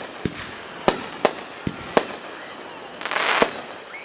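Pyro Mags with Tail aerial shells going off: five sharp bangs in the first two seconds, then a short dense crackling burst about three seconds in that ends on one more bang.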